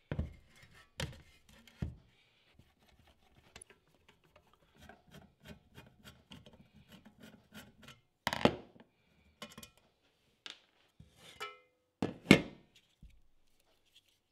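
Handling noise from taking apart the sheet-metal case of an old variac on a wooden tabletop. It is a series of knocks and clunks, with quieter clicking and scraping between them, such as a screwdriver working the case screws, and the loudest clunks come about twelve seconds in.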